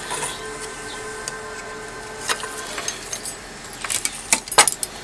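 Light clicks and small metallic rattles from handling an electronics circuit board with aluminium heatsink plates and wires, with a quick run of sharper clicks near the end, over a faint steady hum.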